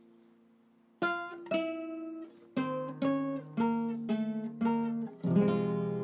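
Acoustic guitar music: after a quiet moment, a phrase of single plucked notes starts about a second in and ends on a strummed chord left ringing.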